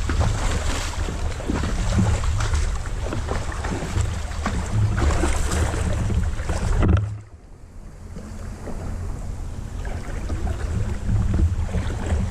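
Wind buffeting the microphone, with creek water and irregular splashes or knocks. It cuts off abruptly about seven seconds in, then builds back up.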